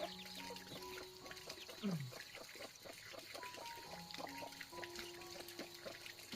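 Faint chirping of birds, many short falling peeps several a second, over soft held background music notes.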